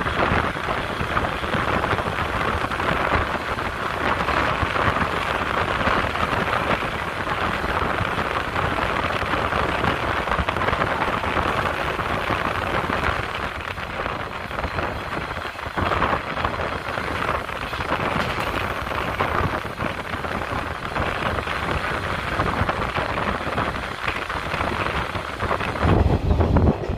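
Wind rushing in through the open window of a moving JNR 185 series train, buffeting the phone's microphone over the train's running noise. The low rumble grows louder near the end.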